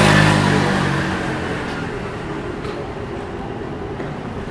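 A motor vehicle passing close by, loudest at the start with its engine hum and tyre noise, then fading away over the next second or so into steady street noise.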